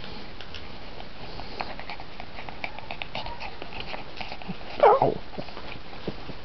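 Belgian Tervuren puppies play-biting and scuffling, with many small clicks throughout. About five seconds in, one puppy gives a single short yelp that falls in pitch.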